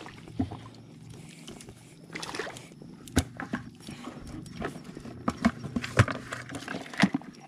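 Footsteps in rubber waders splashing through shallow water over mud, with a run of sharp knocks and clicks, the loudest about three and six seconds in.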